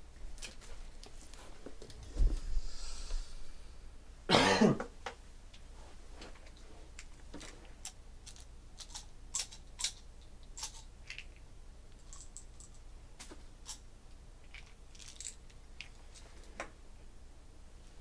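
A cardboard case of trading cards set down on a table with a low thump, a cough about two seconds later, then scattered light clicks and taps of handling.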